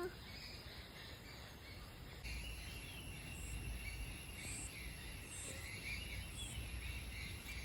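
Outdoor ambience: about two seconds in a steady high insect trill starts, with short high pulses about once a second and faint bird chirps over a low rumble.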